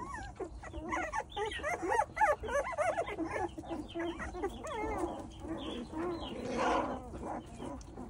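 A litter of young puppies whining and squeaking, many short high-pitched cries overlapping. A harsher, noisier cry comes about six and a half seconds in.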